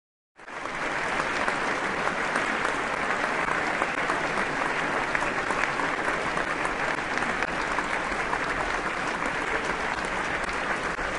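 Audience applause: many hands clapping at a steady level, starting suddenly about half a second in.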